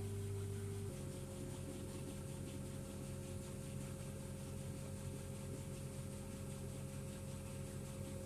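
Diesel engine of a farm machine running steadily, its note shifting to a new steady pitch about a second in.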